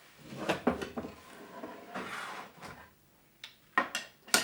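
A screw being driven by hand with a screwdriver, fixing a metal bar to a wooden drawer frame, with clicking and scraping as it turns. Near the end there are two sharp knocks as the parts are handled.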